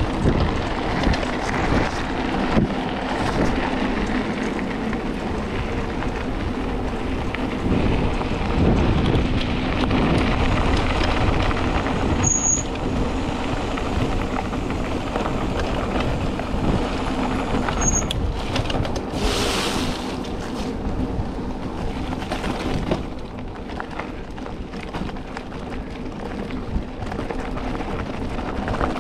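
Mountain bike rolling fast down a dirt road: tyres crunching on loose dirt and gravel and the bike rattling over bumps, with wind buffeting the microphone. Two brief high squeaks come about twelve and eighteen seconds in.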